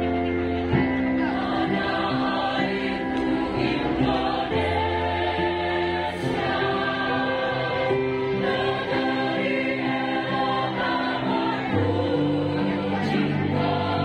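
Choir singing together in parts, holding long notes that change every second or two, with a low bass note held underneath at times.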